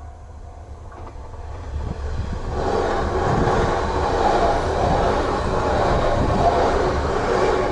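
E3-series Tsubasa Yamagata Shinkansen train passing the level crossing at speed. Its rushing wheel and air noise builds over the first two seconds, then stays loud and steady over a low rumble for about five seconds.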